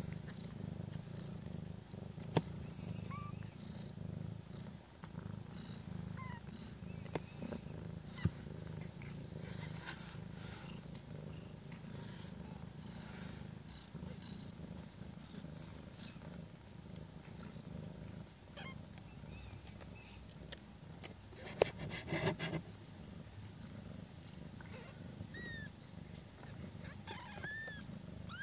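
Mother cat purring steadily while nursing her twelve-day-old kittens, with a few faint high kitten squeaks, mostly near the end. Several sharp clicks cut in, a cluster of them a little past the middle.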